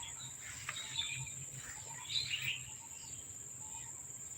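Insects, crickets among them, giving a steady high-pitched drone, with a few short bird chirps over it.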